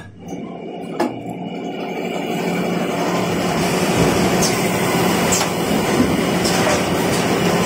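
Automatic paper straw packaging machine running: a steady mechanical hum and rattle, with a sharp click about a second in and a few lighter ticks later. The sound starts low and swells back up over the first couple of seconds.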